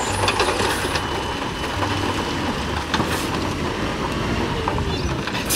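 A dump truck's diesel engine running steadily while its raised bed tips out a load of rocks and earth, with a dense rumble and a few knocks from the sliding rock.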